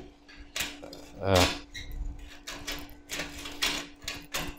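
Steel pliers clinking and scraping against a small steel rose as its petals are pressed together: a scattered series of light metallic clicks.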